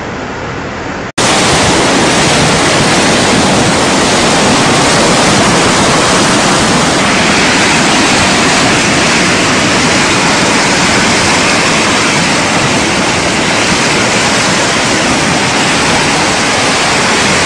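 Loud, steady rushing of fast-flowing flash-flood water close to the microphone. It comes in suddenly at a cut about a second in, after a shorter, quieter rush of floodwater.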